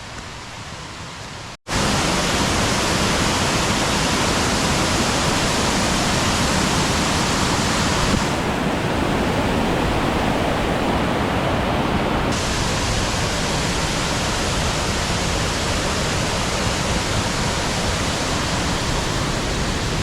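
Loud, steady rush of a waterfall, starting abruptly about a second and a half in.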